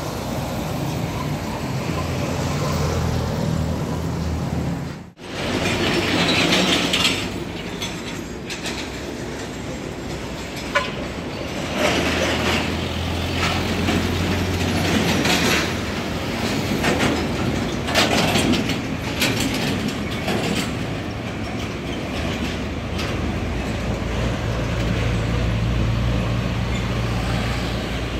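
Heavy diesel trucks with trailers passing close by: engines running, tyres on the road and trailers rattling, with a few sharp clicks and knocks. The sound drops out briefly about five seconds in.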